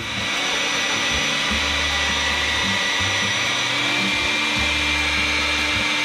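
Handheld hair dryer running steadily, its rush of air carrying a thin, steady whine, as it blows on the frosted cooling fins of an RV refrigerator to melt the ice for defrosting.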